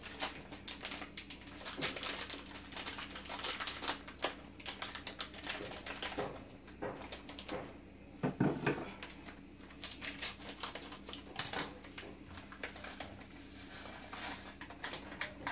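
Rapid, irregular clicking and crinkling as a paper-and-foil packet of caramel flan mix is handled and opened over a metal saucepan, with a short low sound about eight seconds in.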